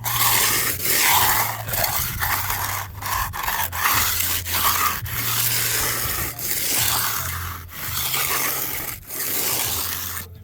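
Hand tool scraping and rubbing through fresh concrete to cut a rebate, in repeated strokes broken by short pauses about every second or so.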